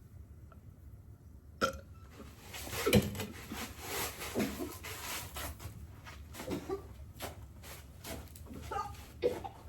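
A sharp click about one and a half seconds in, then rustling and a series of short burp-like throat noises as brown sugar bubble milk tea is tasted.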